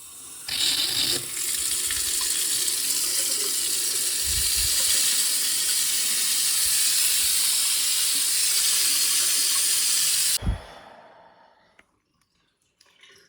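New kitchen mixer tap running into a Belfast sink, a steady rush of water turned on about half a second in. It is tested after the leaking spout O-ring was packed with silicone grease, and is shut off at about ten seconds with a short knock.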